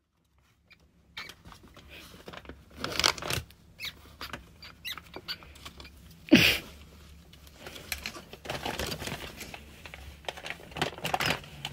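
Pet rat being tickled by a hand inside a wire cage: irregular rustling, scratching and clicking of fingers, fur and cage bars, with small squeaks. One louder sudden knock comes about six seconds in.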